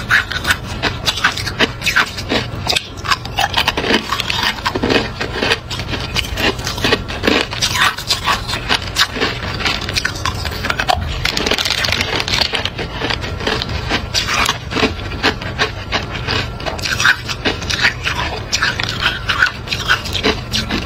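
Hard clear ice being bitten and chewed: a dense, irregular run of sharp crunches and cracks as the cubes break between the teeth.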